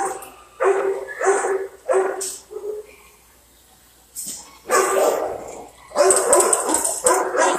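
Shelter dogs barking in their kennels: a run of barks about half a second apart, a short lull about three seconds in, then barking again that crowds together near the end.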